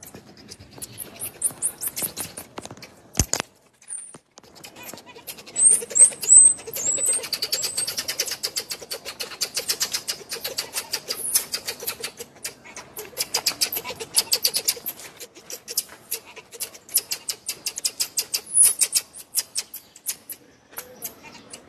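A baby marmoset's high, thin chirps, a short string of them about six seconds in, over a rapid patter of sharp clicks.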